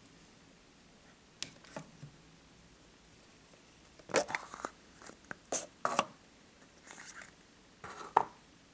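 Hard plastic surprise-egg capsule handled and pulled open by hand: scattered clicks, knocks and rattles of plastic, with the sharpest click near the end.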